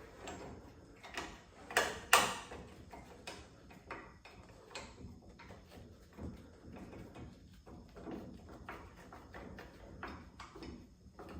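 Irregular clicks and knocks of hand work on car door hinge hardware, with two louder knocks close together about two seconds in.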